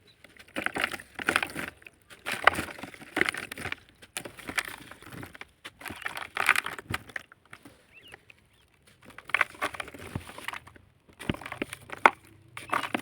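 Lumps of sand-cement being crushed and crumbled into water. The crunching and crackling comes in repeated bursts, roughly one a second, with short quiet gaps between.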